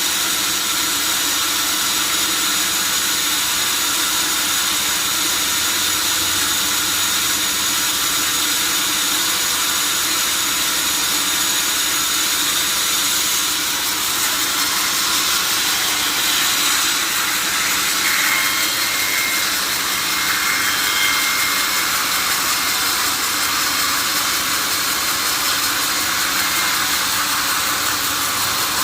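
Sawmill saw running steadily, cutting through a mahogany log.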